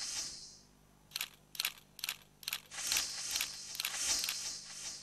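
Sound effects of an augmented-reality animation played over a hall PA: a few short sharp clicks about a second in, then a high shimmering hiss with a fine flutter from about three seconds in.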